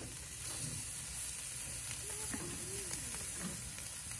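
Whole mackerel scad sizzling on a charcoal grill, a steady hiss of the fish cooking over the coals. A few faint clicks come from metal tongs on the grill grate as the fish are turned.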